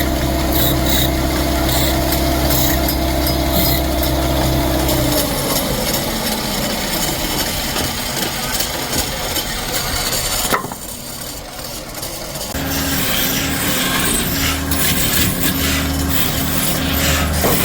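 Woodworking sounds: a machine hum that stops and winds down about five seconds in, then rubbing and scraping on wood. A click comes a little past halfway, followed by a short quieter stretch, and then a low hum cuts in and out.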